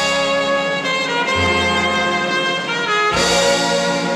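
Brass-led band music playing from a vinyl LP: the instrumental introduction of an old Thai popular song, with trumpets and other brass carrying the tune over a bass line.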